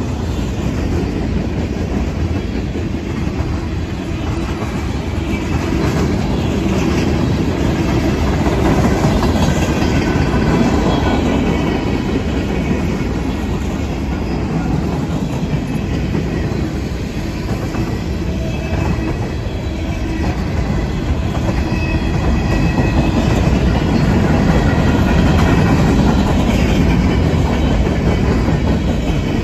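Freight cars of a long mixed train rolling past close by: a steady heavy rumble with clickety-clack of wheels over rail joints, and thin high wheel squeals now and then. The loudness swells and eases a little as the cars go by.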